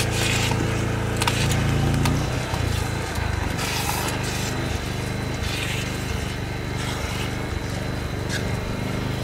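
A small engine running steadily, with now and then the scrape of a metal spoon in a pot.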